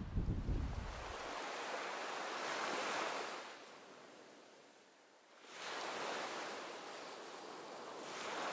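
Ocean surf: a wash of breaking waves that swells and fades slowly, dying away about halfway through and building again. There is low wind rumble on the microphone in the first second or so.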